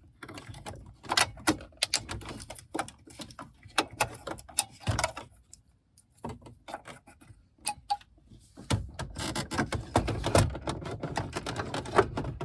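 Irregular sharp plastic clicks, knocks and rattles as the car radio's wiring plugs are handled and connected behind the dash, briefly quiet in the middle, then busier rustling and clicking near the end.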